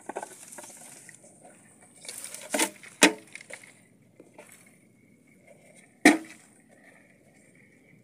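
Rustling and handling noise with a few sharp knocks, the loudest about three seconds in and again about six seconds in, from hands working in grass and soil around a plastic bucket of crabs. A faint steady high tone sounds in the second half.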